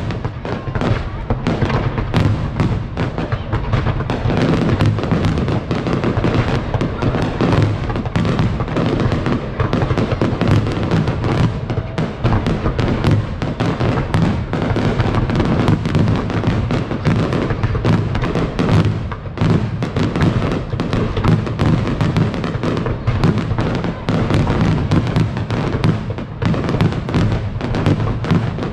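Aerial fireworks bursting in a dense, continuous barrage, many bangs and crackles overlapping, with music playing underneath.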